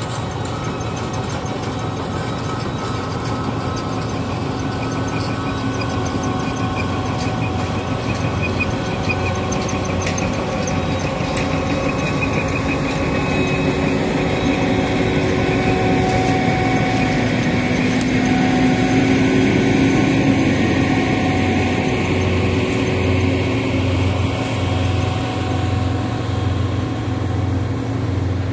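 John Deere W540i combine harvester running steadily as it harvests vetch, its engine and threshing machinery going continuously; it grows a little louder up to about two-thirds of the way through, then eases off slightly.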